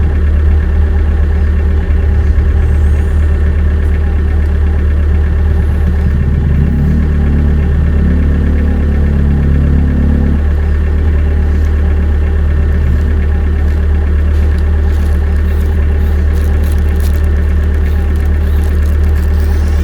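A steady, loud engine-like running sound with a strong low hum, and a stepped run of higher tones between about six and ten seconds in.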